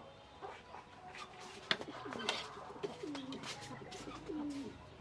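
Metal spoons clinking and scraping against a ceramic bowl of dipping sauce, the sharpest clinks about two seconds in. A couple of short, low calls that fall in pitch and then hold sound about three and four and a half seconds in.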